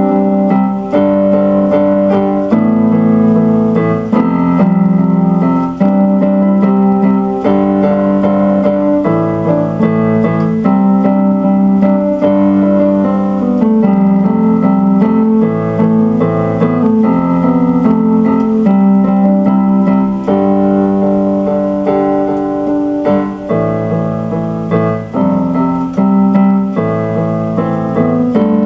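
Electric piano music: sustained keyboard chords changing every second or two over a steady low bass line.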